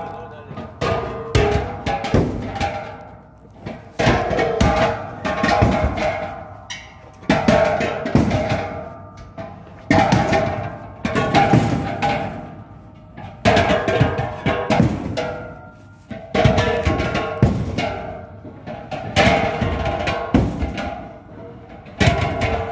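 Empty steel LPG gas cylinders clanking against one another as they are handled and stacked, a loud metallic knock every second or two, each ringing on at the same few pitches as it dies away.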